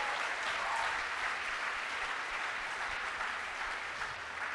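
Audience applauding, steady, easing slightly near the end.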